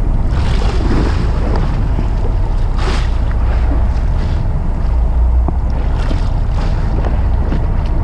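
Wind buffeting the microphone over a steady low rumble, with choppy sea sloshing against the boat's hull and a brief louder wash about three seconds in.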